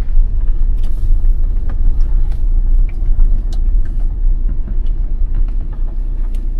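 A car on the move: a loud, steady low rumble of road and engine noise, with small scattered clicks and rattles.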